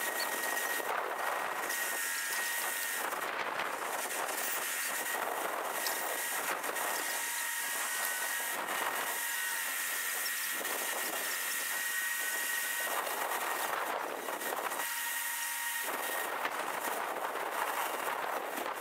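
Mobile crane running as it hoists a heavy load: a steady mechanical noise with a constant high whine.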